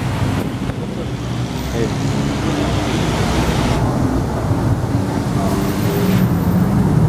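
Strong wind buffeting the microphone over steady roadside traffic noise.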